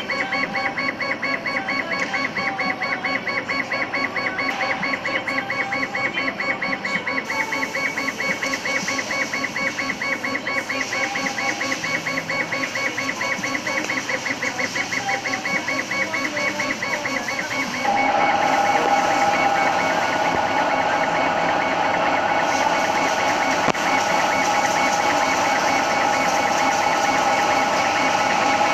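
Laser engraving machine at work: the head's drive whirring in quick, even strokes as it sweeps back and forth over the leather. About two-thirds of the way through, a louder steady hum sets in under the strokes.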